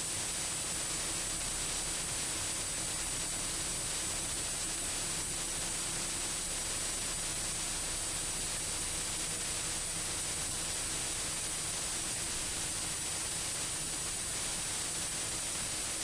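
Steady hiss of a light aircraft's cockpit intercom audio feed, with a faint steady hum beneath it and no changes.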